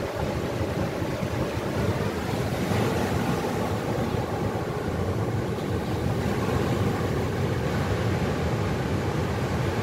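Ocean surf breaking and washing up a beach, a steady rush, with wind rumbling on the microphone.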